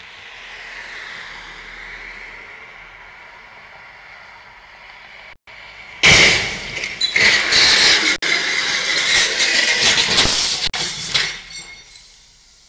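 A car passes softly on the street, then about six seconds in a sudden loud crash breaks out, with glass shattering and clattering debris for about five seconds before it dies away.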